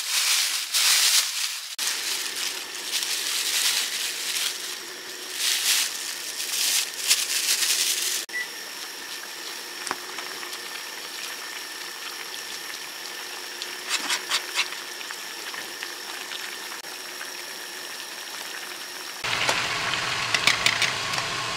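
Rain falling and splashing for about the first eight seconds, cutting off suddenly; after that a steady hiss with scattered light clicks.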